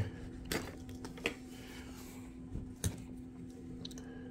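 Hands working an e-bike battery cable connector loose: a few faint, separate clicks and handling noises over a steady low hum.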